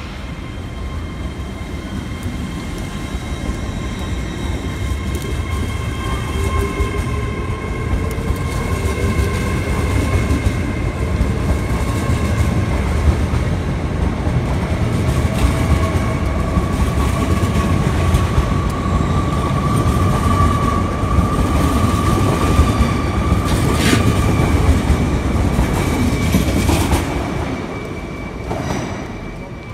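Hitachi Azuma high-speed train pulling out and accelerating past: a rumble of wheels and running gear under a steady whine that rises slowly in pitch as it gathers speed. A few sharp clicks come near the end, then the sound fades as the train draws away.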